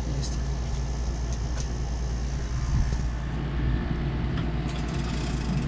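Steady low machine hum, with a few faint clicks scattered through it.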